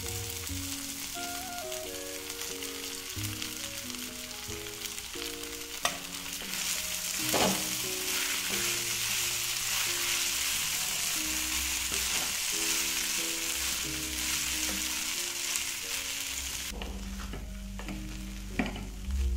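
Soaked poha frying in hot oil in a nonstick kadhai while a wooden spatula stirs it: a steady sizzle, louder from about a third of the way in, with a few knocks of the spatula on the pan. Background music plays throughout.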